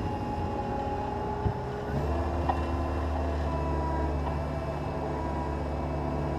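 Cat 236B skid steer loader's diesel engine running steadily. About two seconds in there is a knock, and then the engine note changes to a stronger, steady low hum.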